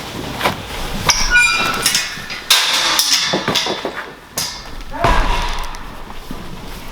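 A series of knocks and thumps, with a short high-pitched squeak about a second and a half in.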